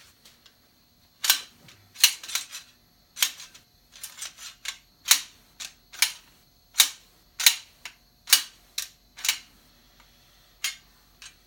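A run of about twenty sharp knocks, metal struck on metal, coming at irregular intervals, some singly and some in quick clusters, as a stuck part is worked to free it.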